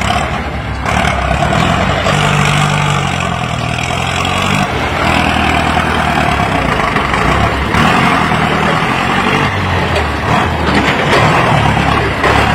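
Ford 6600 tractor's three-cylinder diesel engine running hard, heard up close while the tractor pushes soil with a front dozer blade. It gets louder about a second in and stays loud and steady.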